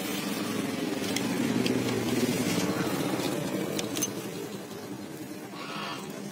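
Steady engine hum, with a few light clicks from plastic relay connectors being handled.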